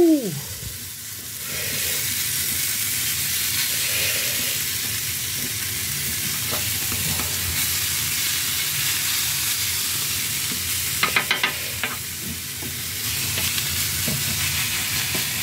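Chopped chicken frying with a steady sizzle on a hot steel flat-top griddle. A quick run of clicks about eleven seconds in comes from a metal grill spoon tapping and scraping the steel.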